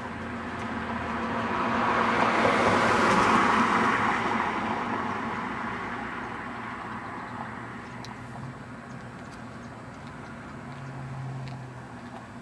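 A car driving past: engine and tyre noise swells to a peak about three seconds in and fades away over the next few seconds. A smaller, lower swell of engine noise follows near the end.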